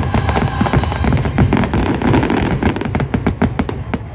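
Dense fireworks barrage in a show finale: aerial shells booming one over another with many sharp cracks, the cracks coming thickest near the end.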